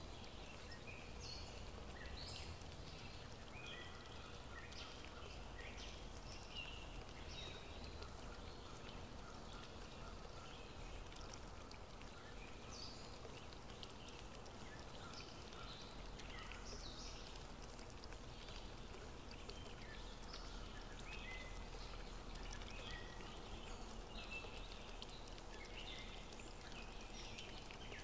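Nature ambience of flowing stream water, a steady faint wash, with birds chirping throughout in short, scattered high calls.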